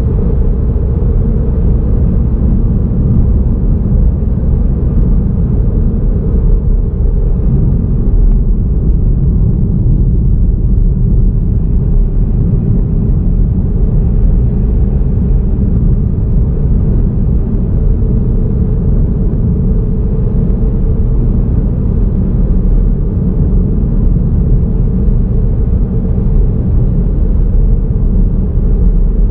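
Steady low rumble of a car driving at a constant pace: road and engine noise picked up by a vehicle-mounted camera.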